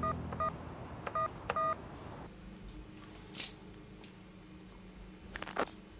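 Touch-tone telephone keypad beeps as a number is dialled on a corded landline phone: about five short beeps in quick succession in the first two seconds. After that come a short rustle and a few clicks of handling.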